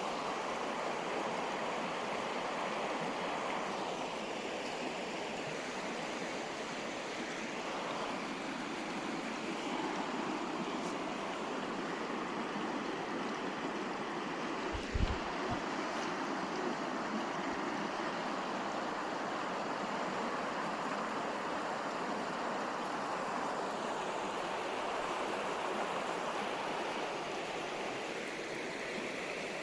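River water flowing and rushing steadily. About halfway through, a brief low double thump.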